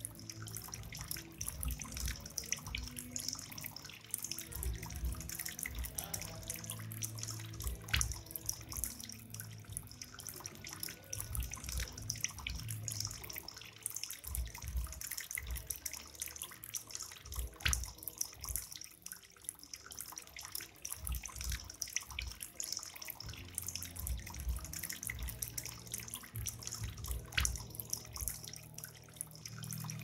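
Bamboo cascade fountain running: water pours from bamboo spouts into a chain of bamboo cups and splashes into a bamboo trough. The trickle is steady, with many small drips and splashes throughout.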